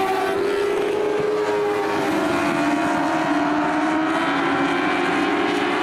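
Several race car engines running on track at speed, their pitch dipping a little about two seconds in.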